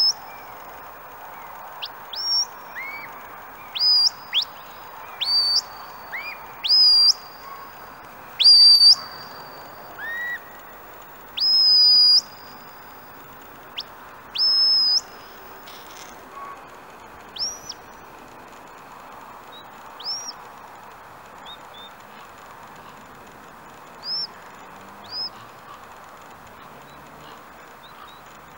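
Shepherd's whistle commands to a working sheepdog: a long series of sharp upward-sweeping whistles, some clipped short and some held as a flat note for up to about a second. They are loud and close together in the first half, then sparser and fainter.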